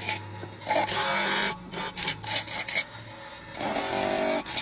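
Wooden paintbrush handle ground against a spinning abrasive disc driven by a motor, in several uneven rasping passes as the wood is pressed on and drawn off, over a low motor hum.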